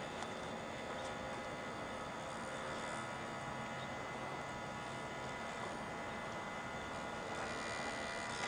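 Faint steady hiss with a low hum and a few thin steady tones; no distinct event stands out.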